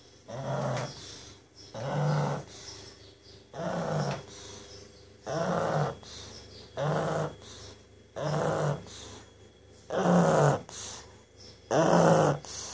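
Pug snoring loudly and rhythmically, with a snore roughly every second and a half, eight in all.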